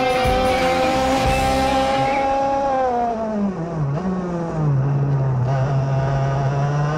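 IAME KA100 single-cylinder two-stroke kart engine heard onboard, buzzing at high revs, then falling steeply in pitch about three seconds in as the driver lifts off for a corner, and running at lower revs through the turn.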